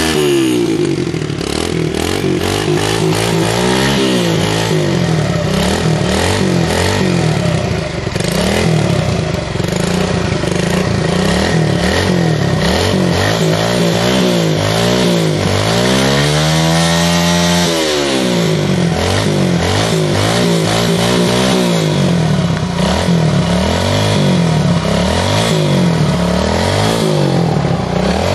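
Kawasaki mini dirt bike engine revving repeatedly, its pitch climbing and dropping with each blip of the throttle. The biggest rev comes just past halfway, rising and falling back over about two seconds.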